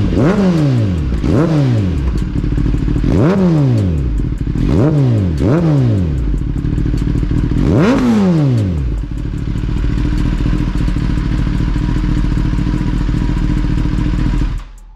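The 998 cc inline-four of a Kawasaki ZX-10RR running through a full Graves titanium exhaust on its first start after fitting and an ECU flash. The throttle is blipped six times, each a quick rise and fall in revs. The engine then settles into a steady idle, and the sound cuts off abruptly just before the end.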